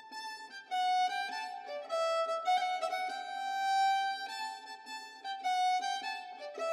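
Instrumental background music: a melody of long, held notes that step up and down in pitch.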